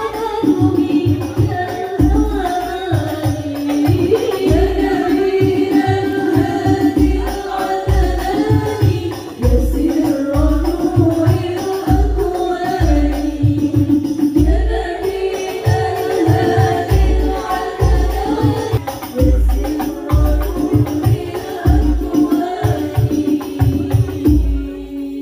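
Music with a singer's melody over a steady bass beat.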